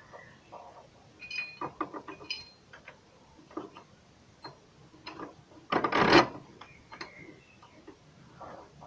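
Irregular metallic clicks and scrapes of a bolt and socket tool being worked by hand into the rear engine mount bracket, with a few short clinks that ring briefly. About six seconds in there is a louder rattling scrape lasting about half a second.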